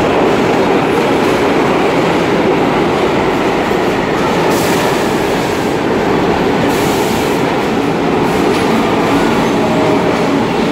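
R46 New York City subway train running along a station platform: a loud, steady rumble and rattle of steel wheels on the rails.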